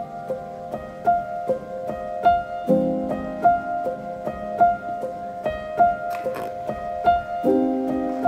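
Background piano music: a gentle repeating melody of single struck notes over low held chords that change about every five seconds.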